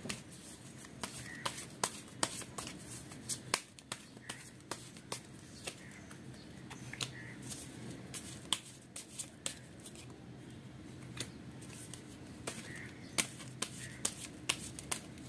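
A deck of tarot cards shuffled and handled: irregular sharp snaps and flicks of the cards. In the second half, cards are dealt out onto the cloth.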